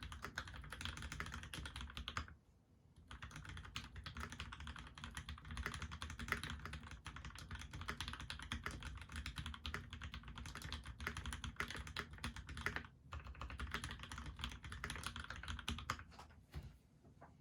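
Fast, continuous typing on a Monstargear PC XO mechanical keyboard with lubed Gateron Ink Black linear switches, a brass plate and GMK keycaps. There are brief pauses about two and a half seconds in and about thirteen seconds in, and the typing tapers off near the end.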